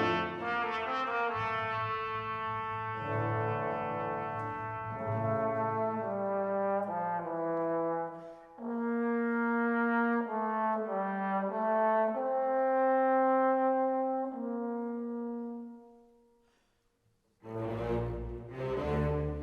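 Background music: slow brass melody of sustained notes, fading out about three-quarters of the way through, then a fuller orchestral passage starting near the end.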